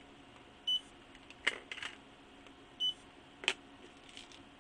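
Barcode scanner beeping twice, a short high beep for each barcode read, each beep followed about two thirds of a second later by a sharp click.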